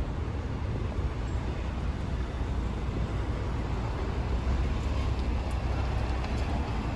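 Street traffic: cars passing on a city street, a steady low rumble with no single standout event.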